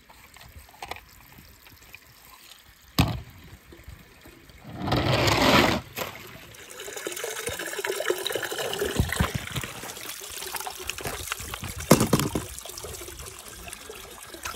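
Water sloshing and trickling in a swimming pool as toy cars are scooped out with a net, with a loud rush of water about five seconds in and a sharp knock near the end.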